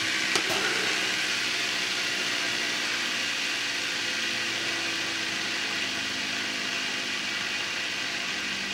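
Fidget spinner spinning on its freshly cleaned ceramic bearing, a steady whir that slowly fades, with a short click just after the start.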